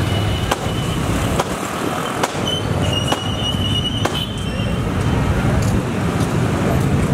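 Street traffic noise: a steady low rumble of vehicle engines, with scattered sharp clicks and knocks and a brief thin high tone around the middle.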